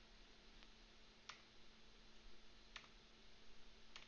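Near silence with about four faint computer-mouse clicks, roughly a second apart, stepping to the next photo in a photo viewer.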